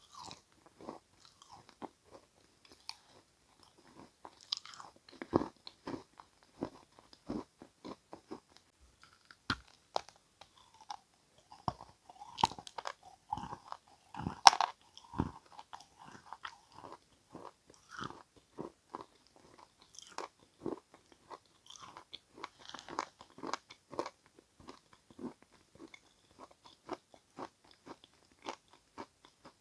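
Edible chalk being bitten and chewed close to the microphone: irregular sharp crunches with quieter chewing between them, the loudest crunch about halfway through.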